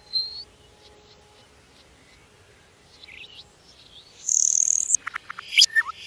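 Small songbird singing: a short rising whistle at the start, a quiet stretch with a few faint notes, then about four seconds in a loud, high buzzy trill lasting under a second, followed by a run of sharp clicking notes.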